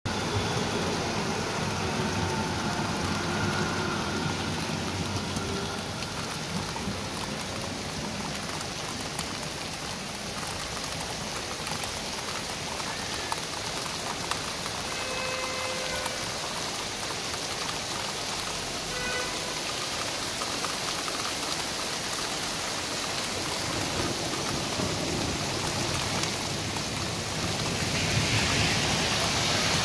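Steady rain falling on a street and pattering on wet surfaces, a continuous hiss. A low rumble in the first few seconds is a tram passing on the wet road, and the hiss grows louder near the end.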